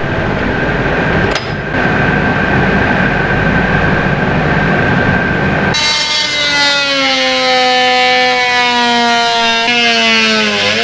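Oscillating multi-tool cutting with its blade under load: a steady buzzing whine that sinks slowly in pitch, with a brief dip and recovery near the end. Before it starts, about six seconds in, the first half holds a steadier, noisier machine hum.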